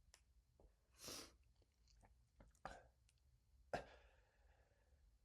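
Near silence between sneezes of a pepper-triggered sneezing fit: a faint breath or sniff about a second in, and a few small clicks and a soft second breath later on.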